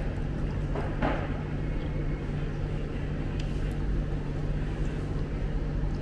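Steady low background hum with a constant drone, traffic-like, with brief faint voices or clatter about a second in.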